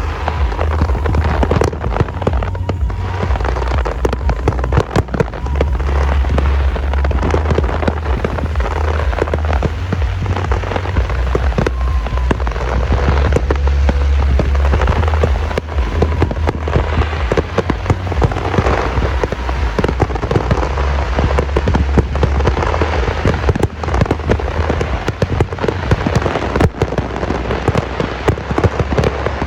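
Fireworks display going off continuously: rapid, dense crackling and popping shells over a heavy rolling rumble of bursts.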